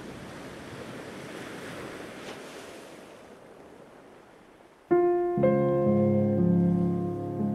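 Sea surf washing, slowly fading away; about five seconds in, solo piano music starts abruptly with held chords, a low bass note joining a moment later.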